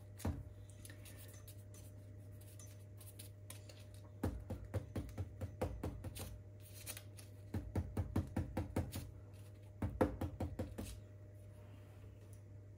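Hands working muffin batter into paper muffin cases on a baking tray: three runs of quick light taps and clicks, about four or five a second, over a low steady hum.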